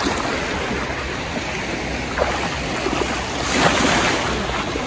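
Small sea waves washing onto the beach, with wind rumbling on the microphone. A wave washes in louder about three and a half seconds in.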